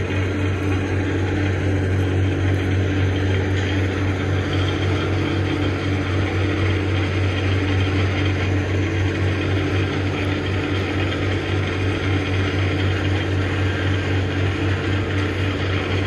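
Steady low drone of heavy industrial machinery, a constant hum with a hiss over it.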